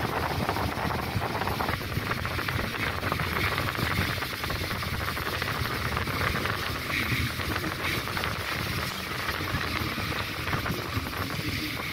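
Steady rushing wind and low rumbling running noise of a moving vehicle, heard from on board.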